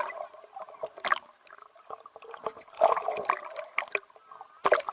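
Water splashing and gurgling in irregular bursts, loudest about three seconds in and again near the end.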